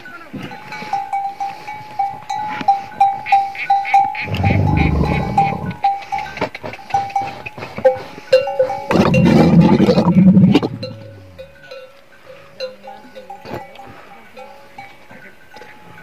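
A bell on a camel clanking over and over, a few strikes a second, while a camel in breeding-season rut lets out two deep rumbling calls, about four seconds in and about nine seconds in, the second the louder. After the calls only the bell goes on, fainter.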